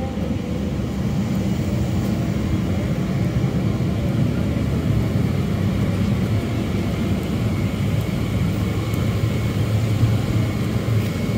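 Steady low hum of cabin noise inside a Lufthansa Boeing 747-8 parked at the gate with its engines not yet running.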